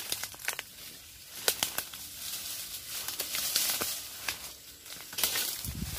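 Rustling leaves, crackling dry stems and snapping twigs as someone pushes on foot through dense, dry undergrowth. There are many sharp cracks, longer brushing rustles in the middle and again about five seconds in, and a low thump near the end.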